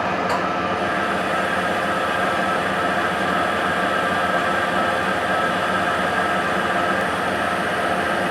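Hendey T&G lathe running steadily with an even gear whine while a boring bar takes a light 5-thousandths boring cut.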